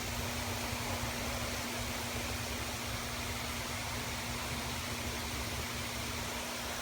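A steady, even hiss of background noise with a faint constant low hum underneath.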